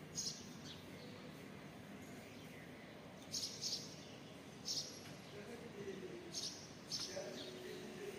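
Small birds chirping: about eight short, high chirps, some in quick pairs, scattered over a faint steady outdoor background.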